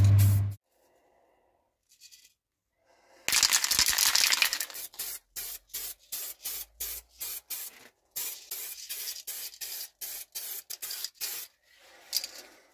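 A loud low hum cuts off right at the start. Paint is then sprayed onto a moped fuel tank: one longer hiss of about a second and a half, then a quick run of short hissing bursts, about two a second, with one brief pause partway through.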